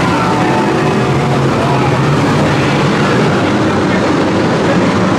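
A large pack of F1 stock cars racing through a bend together, their V8 engines blending into one loud, steady roar of many engines at once.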